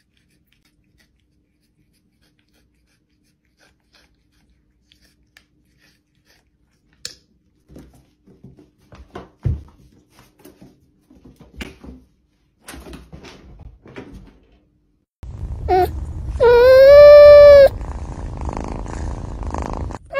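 A cat meowing: a short call, then a loud, drawn-out meow of about a second at a steady high pitch. Scattered light knocks and taps come before it.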